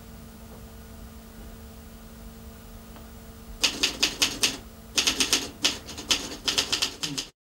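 A steady low hum, then from about halfway in a rapid run of sharp clicks in short bursts of several clicks each, cutting off suddenly near the end.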